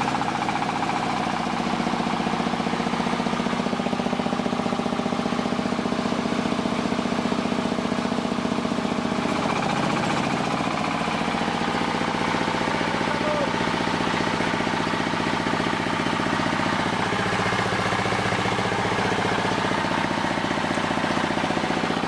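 Auto rice milling machine running steadily under load, its motor and milling drum humming with a fast, even rattle as milled grain pours from the chute.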